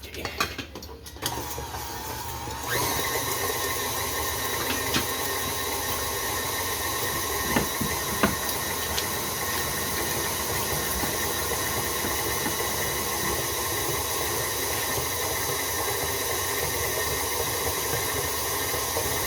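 Countertop blender motor switched on about a second in, picking up speed and then running steadily as it blends cheesecake batter.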